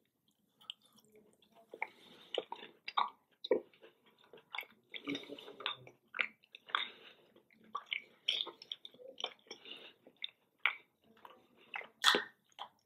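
A person chewing a mouthful of quiche Lorraine, with soft, irregular crunching from its crisp homemade shortcrust pastry.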